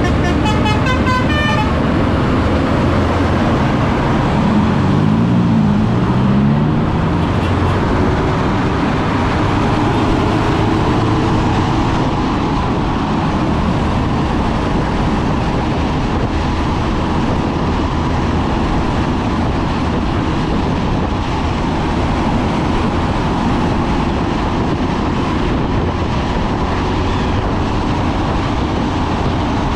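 Intercity bus on the move, its engine and road noise running steadily. A warbling Basuri telolet horn sounds briefly at the start, and a lower horn tone alternates up and down about four to seven seconds in.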